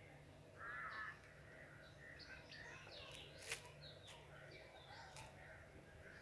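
Small birds chirping and twittering faintly, with one louder harsh call about a second in and a single sharp click a little past the middle.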